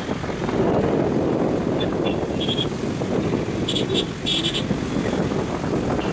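Road traffic and wind rushing past while riding along a city road among motorcycles, a steady low rumble. A few short high beeps sound between about two and four and a half seconds in.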